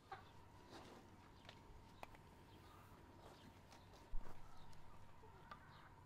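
Chickens clucking faintly, with scattered light ticks and one sharp knock about four seconds in.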